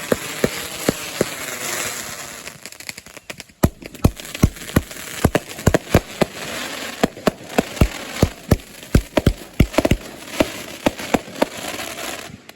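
Fireworks going off: a rapid, irregular string of sharp bangs, several a second, over a crackling hiss, cutting off suddenly near the end.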